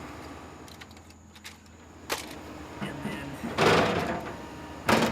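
Plastic Bruder Cat wheel excavator toy being handled: a sharp click about two seconds in, then two loud bursts of scraping, rattling noise near the end.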